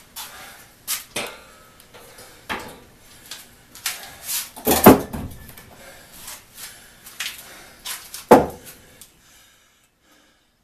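Handling clatter and wooden knocks as a one-man crosscut saw is set aside and a freshly sawn round of dried mulberry is picked up and set down on a workbench, with the two loudest knocks about five and eight seconds in.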